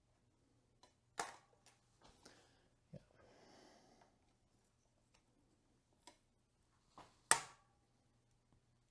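Scattered clicks and knocks of bicycle parts and tools being handled on the bench, with two sharp clacks about a second in and about seven seconds in, the later one loudest, and a brief soft rustle in between.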